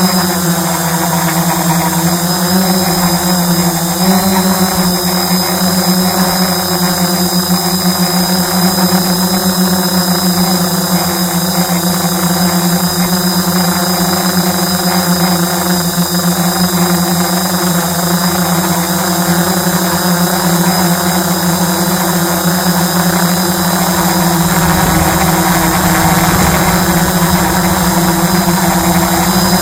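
Quadcopter drone's electric motors and propellers running steadily in flight: a constant hum with a high whine above it, its pitch lifting briefly about four seconds in.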